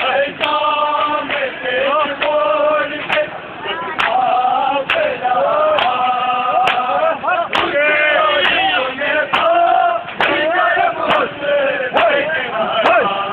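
A crowd of men chanting a mourning lament (noha) in unison during matam, with sharp hand slaps on bare chests keeping an even beat of about one a second.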